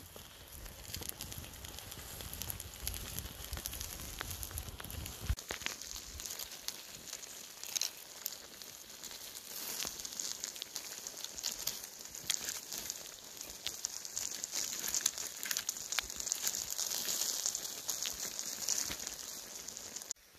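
Wood fire crackling with many small sharp ticks, and chicken fajita filling sizzling inside halved pineapples roasting in the embers.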